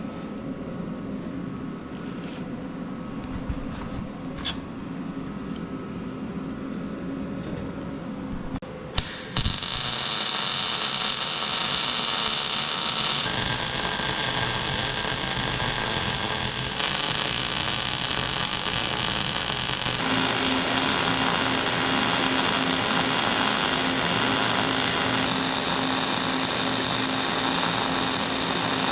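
A handheld power tool starts abruptly about nine seconds in and runs steadily, a loud hiss with a whine, shifting in tone a few times as it works. Before it, a lower steady hum with a few clicks.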